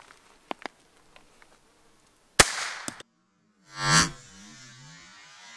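A single .22 Long Rifle shot from a Cooey Model 39 rifle about two and a half seconds in: a sharp crack with a short decaying tail. After a brief drop to silence, a low humming swell rises and fades about four seconds in, and a faint steady hum follows.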